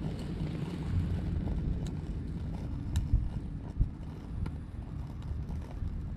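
Wind buffeting the microphone, an uneven low rumble, with a few faint ticks.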